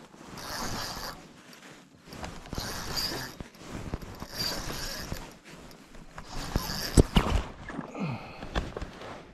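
Fishing reel being cranked in short whirring bursts, about one every two seconds, as a jerkbait is worked in with pauses between turns. A sharp knock about seven seconds in is the loudest sound.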